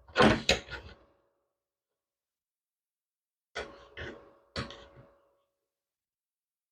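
Sharp metal knocks with a brief ring: a quick loud cluster at the start, then three more knocks about three and a half to five seconds in, as steel parts on the go-kart frame are knocked into position.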